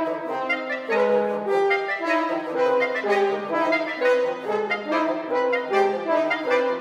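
Wind sextet of two clarinets, two French horns and two bassoons playing a lively passage. Short chordal figures repeat roughly once a second.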